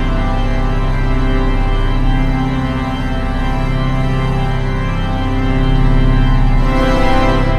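Organ music playing full, sustained chords, swelling louder about six seconds in.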